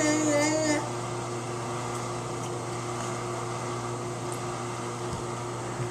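Steady mechanical hum, like a fan or appliance, with a low drone and a few constant tones. A short held voice sound runs through it for under a second at the start.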